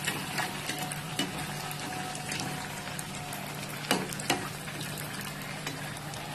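Puris deep-frying in hot oil, the oil sizzling and crackling steadily as a perforated skimmer ladles oil over them. Two sharper clicks come about four seconds in.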